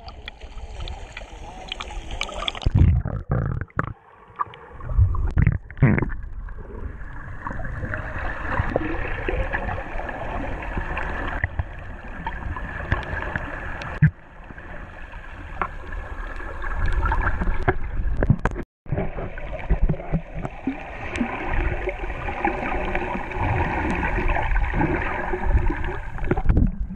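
Water sloshing around a camera held at the surface, then muffled underwater gurgling and bubbling as the camera goes under with swimming snorkelers. The sound is broken a few times by abrupt cuts.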